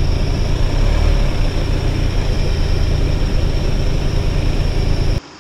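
Ford Bronco Sport's engine running steadily at low revs as the SUV crawls up a dirt trail, a loud low rumble with a thin steady high tone above it. It cuts off abruptly near the end.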